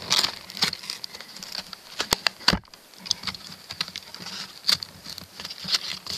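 Plastic shrink-wrap being slit with a small knife and torn off a cardboard card-deck box: irregular crinkling and crackling with scattered sharp ticks, and two sharper snaps a little over two seconds in.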